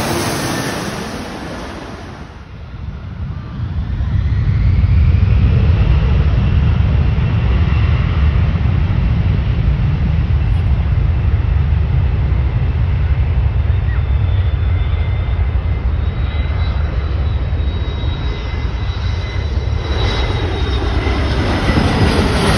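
Jet engines of low-flying jets on landing approach. A jet passing overhead fades in the first two seconds; then a private jet's engines come in, a steady deep rumble with a thin whine rising in pitch, growing brighter as it passes overhead near the end.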